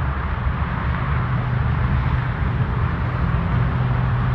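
Steady outdoor background noise: a continuous low rumble with an even hiss over it and no distinct events.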